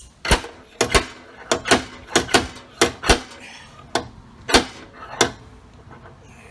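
Slide hammer dent puller pulling on a stud welded to a car body panel: about a dozen sharp metal clanks in quick, irregular succession, around two a second, easing off after about five seconds. Each blow draws the dent out a little, slowly but surely.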